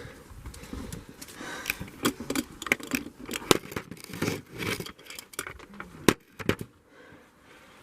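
Footsteps scrambling over rocks: irregular clicks, knocks and scrapes, with a sharp knock about six seconds in before it goes quieter.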